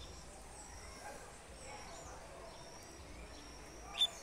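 Faint high bird chirps over a low steady outdoor background, then about four seconds in a sharp, loud high note from a caged double-collared seedeater (coleirinho), the opening of its 'tui-tui' song.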